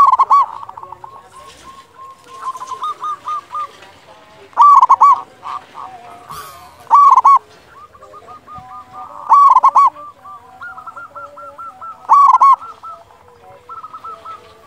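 Local zebra dove (perkutut) cooing loudly: five short phrases, each a quick run of two or three hooked notes, one every two to three seconds. Fainter bird calls carry on between the phrases.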